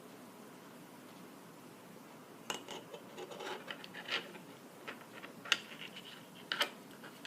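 Small clicks, taps and scratches of tools and a small circuit board being handled while battery-pack wires are fitted and soldered to it. The sounds come in a scattered run from about two and a half seconds in, with a single sharp tick midway and a couple of knocks near the end.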